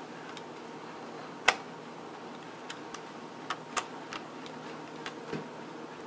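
A small screwdriver driving screws into the plastic bottom cover of an HP DV6 laptop: scattered light clicks and ticks as the screws seat, with one sharper click about a second and a half in, over a faint steady hum.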